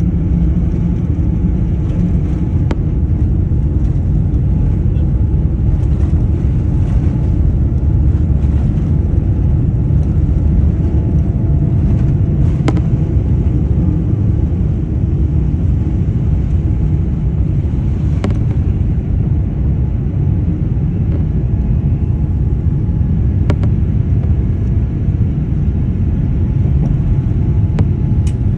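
Jet airliner's engines at takeoff thrust heard from inside the cabin during the takeoff roll and liftoff: a loud, steady low rumble, with a few faint clicks.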